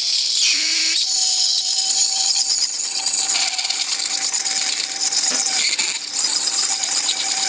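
Box-cutter blade held by hand against a small chimney part spinning in a metalworking lathe, scraping with a fast chatter over the lathe's steady motor hum. The cut lets up briefly about a second in and again near six seconds.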